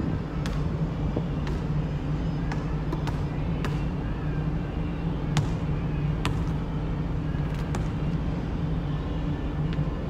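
Basketball bouncing on the court, a series of sharp, irregularly spaced bounces roughly once a second, over a steady low hum.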